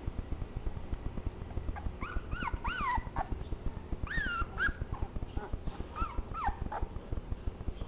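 Boxer puppies whimpering in short high cries that rise and fall in pitch, coming in little groups about two seconds in, around four seconds and again near six seconds, over a constant low crackle of small knocks.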